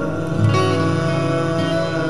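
Instrumental background music with long sustained notes.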